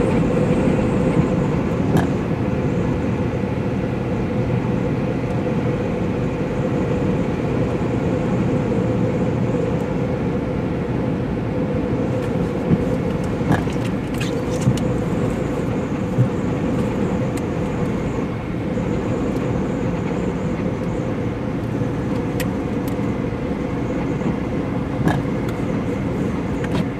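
Car driving, its steady engine and road noise heard from inside the cabin, with a faint steady hum and a few scattered sharp ticks.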